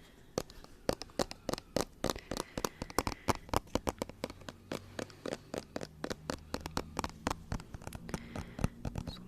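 Close-miked ASMR trigger sounds: a fast, even run of sharp clicks and taps, about five a second.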